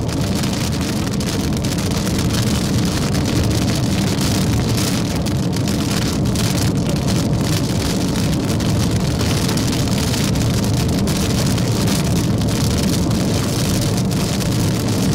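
Steady road and engine noise inside a moving car, an even rumble without pauses.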